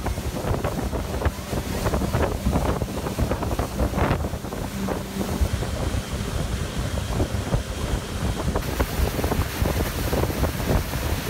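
Motorboat engine running under way, drowned in heavy wind buffeting on the microphone, with water splashing and slapping against the hull.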